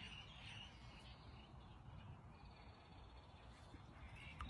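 Near silence: faint outdoor background, with a few faint bird chirps in the first second.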